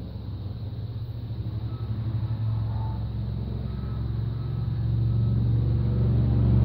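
A motor vehicle's engine rumble, growing steadily louder.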